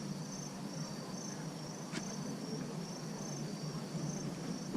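Insects chirping in a steady rhythm, about two high, pulsing chirps a second.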